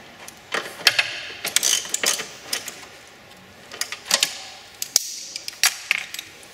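Hand socket ratchet clicking in several short bursts as it tightens down the nut on the ground wires.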